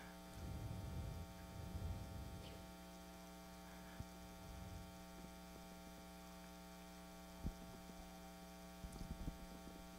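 Faint steady electrical mains hum, a low buzz with many evenly spaced overtones. A soft low thump comes about seven and a half seconds in, and a few more near the end.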